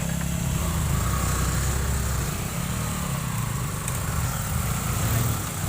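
Motorcycle engine running on an off-road track, its note rising and falling unevenly.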